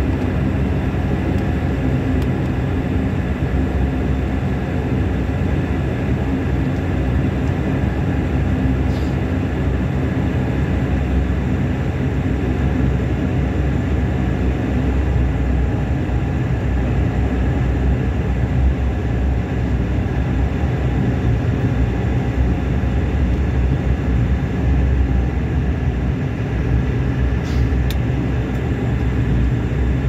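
Bombardier Q400's Pratt & Whitney PW150A turboprop engines and propellers running at low power, heard from inside the cabin as the airliner taxis after landing: a steady low drone with several held tones.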